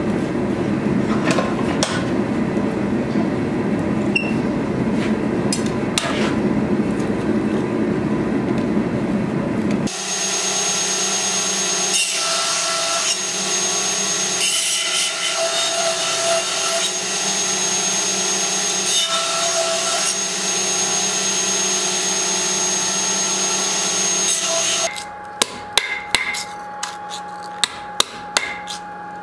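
Steady rushing shop noise with a few knocks, then a belt grinder running, its belt hissing with a high whine as a thin metal sheet is ground against it. About 25 seconds in, several sharp hammer strikes ring on an anvil, roughly two a second.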